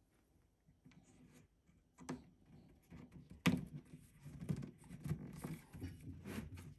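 Hands handling flat-pack furniture parts: a couple of sharp knocks, the loudest about three and a half seconds in, then irregular rubbing and scraping as a thin strip is worked along the edge of a particleboard panel.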